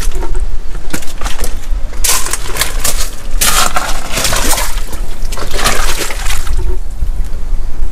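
Strong wind buffeting the microphone with a constant low rumble, and several loud bursts of splashing, rushing water over it.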